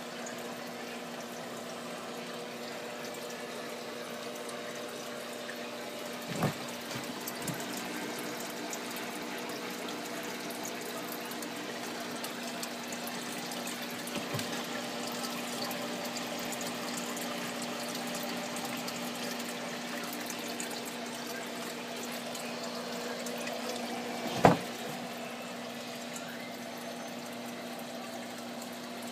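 Water running and splashing steadily through an aquarium refugium and sump's overflow pipes and filter socks, over a steady pump hum. Two short knocks break through, the second one louder.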